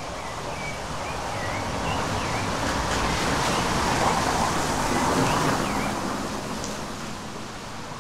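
Rain falling steadily, with a rushing swell of noise that builds to a peak about halfway through and fades again, and short bird chirps over it.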